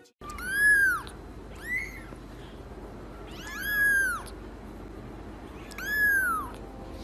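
A very young kitten mewing four times: short, high-pitched calls that rise and fall in pitch, the third drawn out a little longer than the others.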